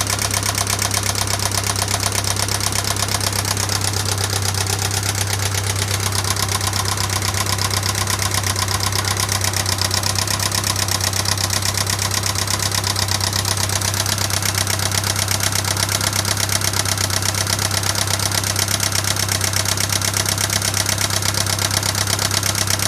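1996 Pontiac Sunfire's 2.4L twin-cam four-cylinder engine running steadily with a fast, even ticking. The tick has persisted through a rebuilt head and valves and new lifters, and its cause is still unknown.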